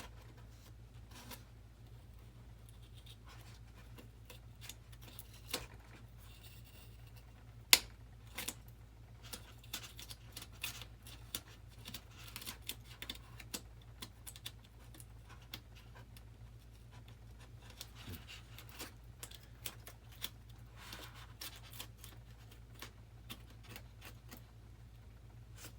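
Hand blade cutting and scraping into a foam model-jet airframe: scattered small scratches and clicks, with one sharp click about eight seconds in, over a steady low hum.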